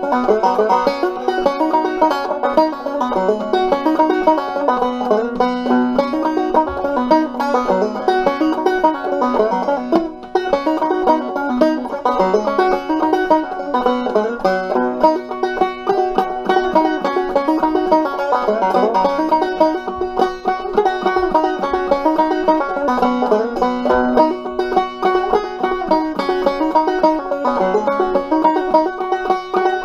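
Five-string banjo played clawhammer style in an open bBF#BC# tuning: a lively, steady run of plucked notes and brushed strums with a bouncing rhythm.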